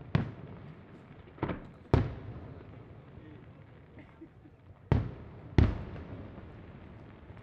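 Aerial firework shells bursting: five sharp bangs, each dying away in a short rumble. Two come close together near the start, one about two seconds in, and two a little over half a second apart around five seconds in.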